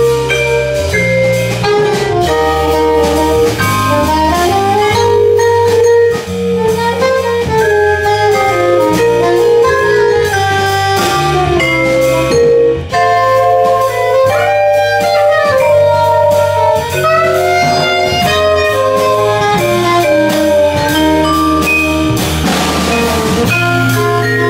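Live jazz waltz played by a quartet: soprano saxophone carries a gliding melody over vibraphone, bass and drums, with a cymbal wash near the end.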